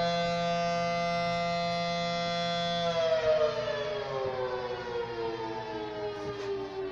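Warning siren sounding a two-tone chord, held steady for about three seconds, then winding slowly down in pitch.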